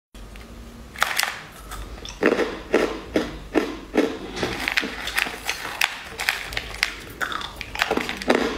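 Crisp crunching of sugar-crusted jelly candy cubes, a sharp crunch about twice a second, starting about a second in.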